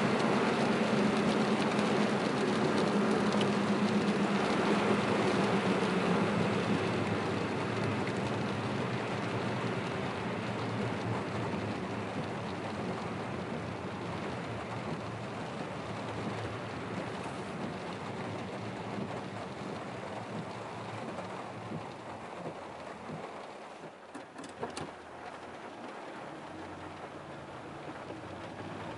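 Heavy rain and wet-road tyre noise heard from inside a moving car's cabin, a steady wash that grows gradually quieter as the car slows into the parking area. A low hum fades out in the first several seconds, and a few sharp clicks come about 24 seconds in.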